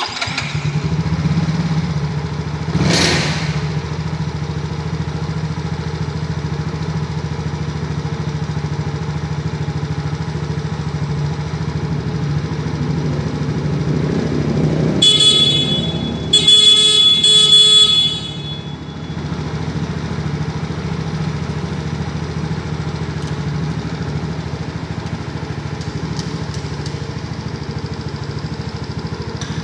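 Yamaha Mio J scooter's single-cylinder fuel-injected engine catching and idling steadily, test-run after a starter motor replacement. Its horn honks twice about halfway through, the second honk longer.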